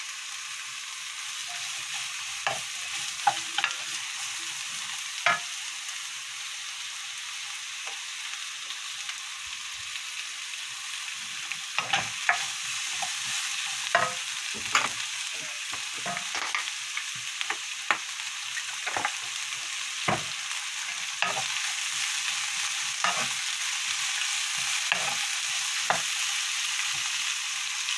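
Sliced onion, cabbage, zucchini and carrot sizzling in oil in a frying pan over high heat, with irregular sharp clicks and scrapes of a wooden spatula stirring them against the pan.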